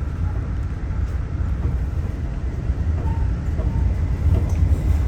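Steady low rumble of an Amtrak Amfleet passenger car rolling along the track, heard from inside the car.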